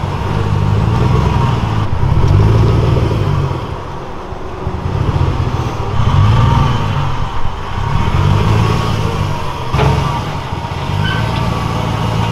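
Lowered GMC Sierra pickup's engine running with a deep exhaust note that swells and eases every couple of seconds under light throttle as the truck creeps at low speed. A single sharp knock about ten seconds in.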